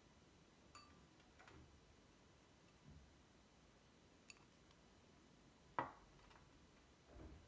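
Faint handling of clear Luminarc Cosmos glass salad bowls on a glossy tabletop: a few light ticks, then one sharper glass clink with a short ring a little before the end as the small bowl is touched down, followed by a soft low knock.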